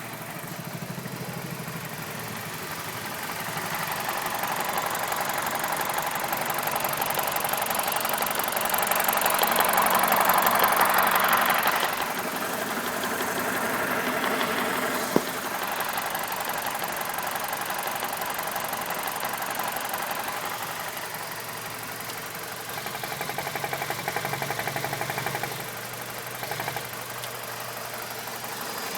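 BMW E46's N42 four-cylinder engine idling roughly, heard up close, with its mass airflow sensor unplugged: the rough idle is still there without the MAF. The sound swells and fades, and there is one sharp click about halfway through.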